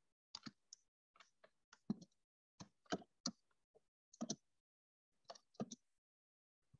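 Faint, irregular clicks of computer keyboard keys as text is typed, a few keystrokes at a time with short pauses between.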